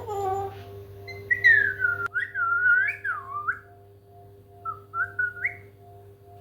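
African grey parrot whistling: a long whistle that slides down and then wavers up and down, followed about a second later by a shorter rising whistle.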